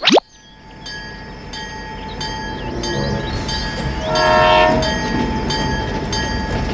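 A train running, with a regular clatter about twice a second and a horn sounding for about a second some four seconds in. A short rising swoosh opens the sound.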